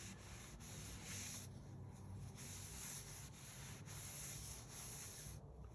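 Terry-cloth towel wiping a wet tabletop, faint back-and-forth rubbing strokes as the neutralized ferric chloride is scrubbed off; it stops near the end.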